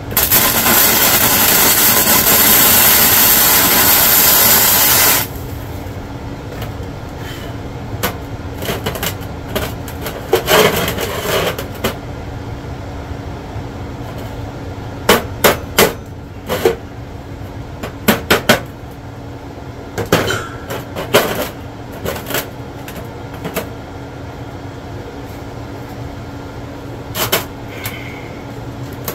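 Electric welding arc crackling and hissing loudly for about five seconds as the snapped steel torsion spring bar of an Eames office chair is welded back together, then cutting off. After it comes a scatter of sharp metallic taps and clinks in small groups over a steady low hum.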